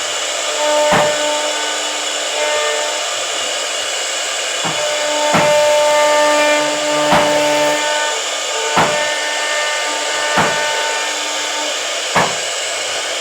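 CNC router spindle cutting wood: a steady whirring, cutting noise with sustained tones that come and go, and sharp knocks about every one and a half to two seconds.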